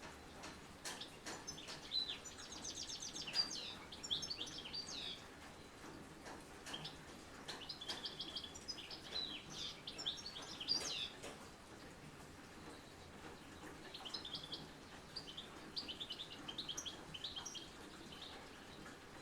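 A songbird singing three phrases of quick, high chirps and trills, each a few seconds long. Light ticking of raindrops is heard between the phrases.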